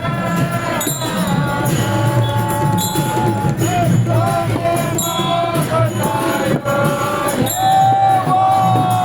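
Music: a melody of held notes that slide and bend, over steady percussion with a jingling, cymbal-like high part.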